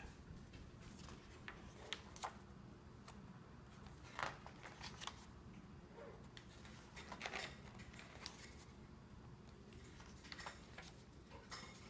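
Glossy paper catalogs being handled and their pages turned: several faint, short rustles and page flips.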